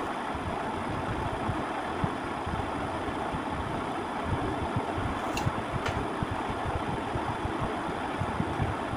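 Steady mechanical background noise, like a motor running, with two faint clicks about five and six seconds in.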